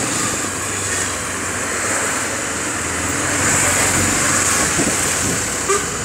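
Motorcycle engine running as the bike rides through street traffic, heard from a handlebar-mounted phone, with wind rushing over the microphone. It gets a little louder a little after halfway.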